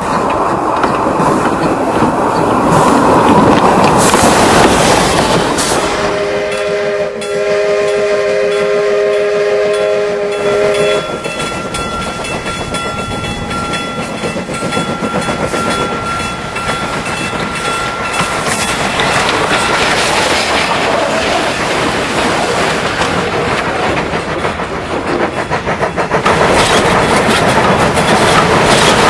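Steam locomotive running, with a steady rhythmic beat and rail clatter. About six seconds in, its whistle sounds a chord of several steady notes for about five seconds, and a single higher steady note follows for several seconds more.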